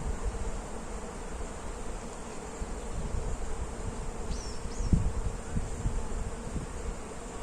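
Bees buzzing steadily, with wind gusting on the microphone and two short bird chirps a little over halfway through.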